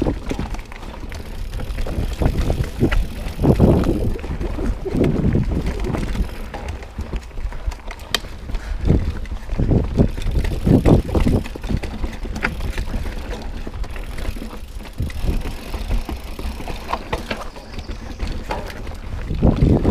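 Mountain bike rolling fast down a rocky, rooty dirt singletrack: tyres rumbling and crunching over rock and roots, with the bike rattling and knocking on each bump and a steady low rumble of wind on the microphone. The knocks come in heavier clusters as the bike crosses rougher patches.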